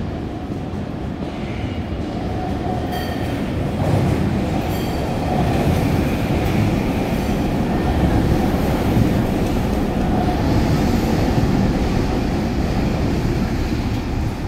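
SkyTrain light-metro train arriving at an elevated station platform. Its rumble grows louder as it approaches, then holds steady as the cars roll past close by.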